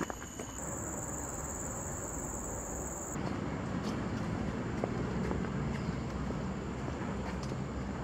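Insects drone steadily at a high pitch over a faint background for about three seconds. After a cut, a louder, steady low rumble of road traffic takes over, with a few faint footsteps.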